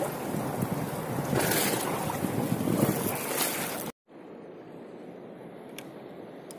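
Wind buffeting the microphone over sea water slapping and lapping against a ship's hull. About four seconds in it cuts off abruptly, and a quieter steady wash of water follows.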